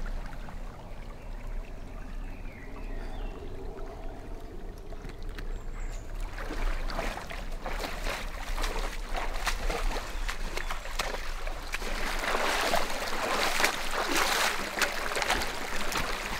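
Shallow stream running, then from about six seconds in, feet splashing and wading through the water, growing louder and busier toward the end.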